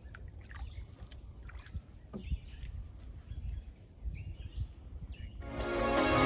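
Faint pond-side ambience with birds chirping, a few light clicks and a low rumble. Background music fades in near the end.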